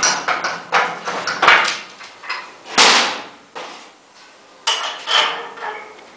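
Metal clanking from the aluminium mast sections of a wall-plastering machine being handled and fitted together: a run of sharp knocks, each ringing briefly, the loudest a little before the middle.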